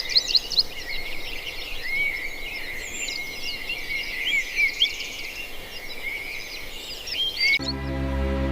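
A chorus of many small birds chirping and singing, with dense overlapping short calls. Near the end it cuts off abruptly and gives way to music with sustained notes.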